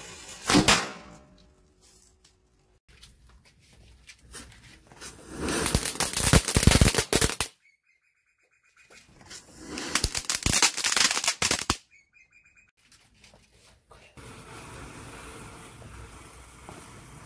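Diwali firecrackers going off: a sharp bang about half a second in, then two runs of rapid crackling pops, each lasting two to three seconds. A steady low hiss follows near the end.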